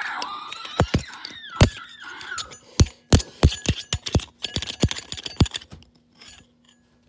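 A metal spoon tapping and clinking against the steel wheel of a pizza cutter: about a dozen irregular clinks that stop a little over two-thirds of the way through.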